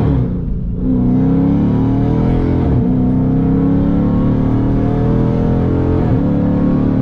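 A 5.7-litre Hemi V8 in a Dodge Charger R/T pulling under load, heard from inside the cabin. Its note climbs slowly, broken by brief dips about half a second in, near three seconds and near six seconds, where the automatic gearbox changes gear.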